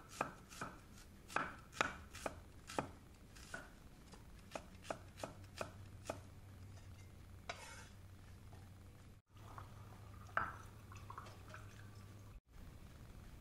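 Kitchen knife slicing shallots on a round wooden chopping board: a run of sharp, irregular chops that thin out after about six seconds. One louder knock comes about ten seconds in.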